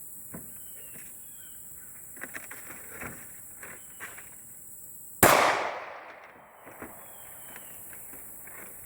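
A single loud gunshot from a hard-kicking shoulder-fired gun about five seconds in, its echo dying away over a second and a half. A few faint clicks come before it.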